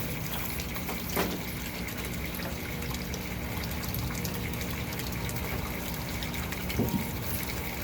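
Steady running and splashing of water in an aquaponics sump tank, with a faint hum from its water pump. One sharp knock about a second in.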